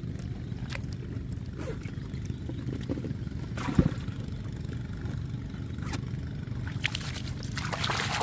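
Steady low drone of a motor, with scattered clicks and a sharp thump about four seconds in, and a rush of noise near the end.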